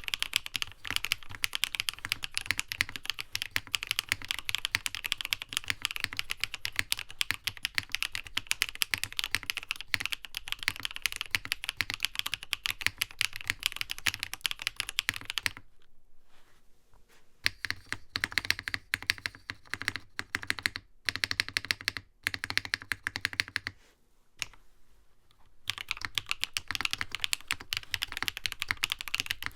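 Fast, continuous typing on a NovelKeys Classic TKL mechanical keyboard, dense clacking keystrokes. About halfway through the typing breaks into shorter runs with a couple of brief pauses, then resumes steadily near the end.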